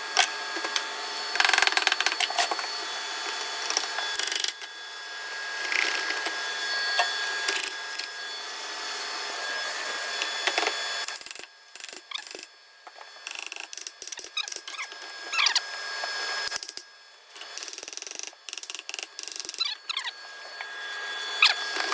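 Hand tools working on a manual transmission's steel parts: irregular metallic clicking, tapping and ratcheting.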